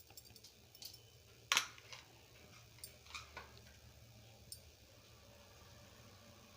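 Faint, scattered clicks and light taps of a kitchen utensil, one louder tap about a second and a half in, over a low room hum.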